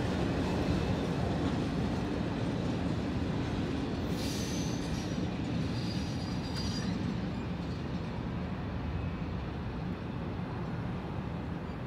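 Freight train cars rolling over the crossing and moving away, a steady rumble that slowly fades. About four seconds in, wheels squeal in high tones for about three seconds.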